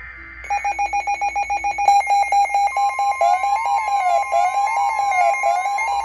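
Several emergency alert tones sound together. A rapid beeping starts about half a second in. Near two seconds more beeping tones join, and then a tone warbling up and down about once a second is heard over a steady high tone.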